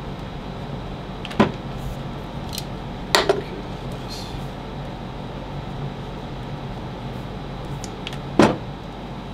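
Sharp clicks and knocks from an AOVO electric scooter's folding stem and its latch being handled and pressed into place: one about a second in, one about three seconds in with a short ring, and the loudest near the end. A steady low hum runs underneath.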